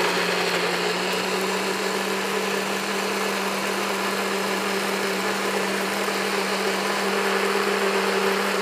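NutriBullet blender motor running steadily at full speed with a constant hum, puréeing fresh raspberries, blueberries and blackberries into a smooth sauce.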